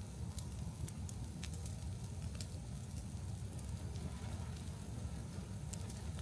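Large wood fire burning: a steady low rumble of flames with scattered sharp crackles and pops, several in the first couple of seconds and two close together near the end.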